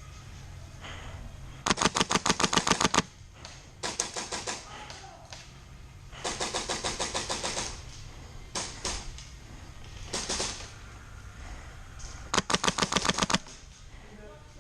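Airsoft guns firing rapid full-auto bursts of evenly spaced sharp clicks, about six bursts in all. The loudest bursts come about 2 s in and near the end, with shorter, quieter ones between.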